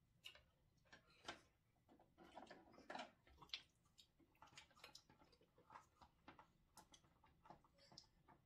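Faint, irregular clicks and cracks of eating at the table: king crab shell being broken apart, with chopsticks and utensils tapping dishes.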